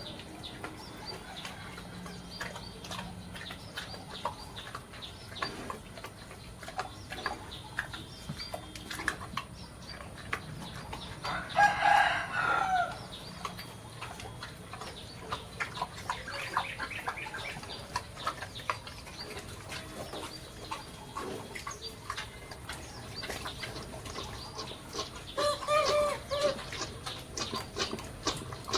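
Chickens clucking, with a rooster crowing twice: once about twelve seconds in and again near the end.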